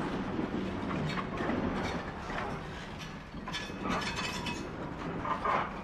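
Loaded PCA bulk cement wagons rolling slowly along the siding: a low rumble of wheels on rail with repeated metallic clanks and clinks. Brief high squeals come in about three and a half seconds in and again near the end.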